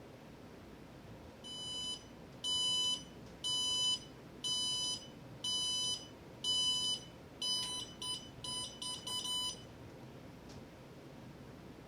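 Electronic beeping from a heat-treat oven's digital controller: about six half-second beeps roughly a second apart, then a quicker run of short beeps that stops.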